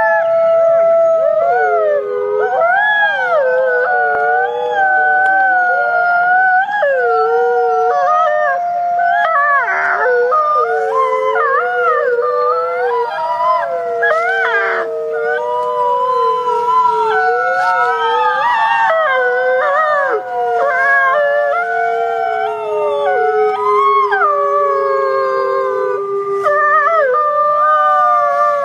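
Wolves howling together: several long howls at different pitches overlap, held steady or sliding up and down, with no break in the chorus.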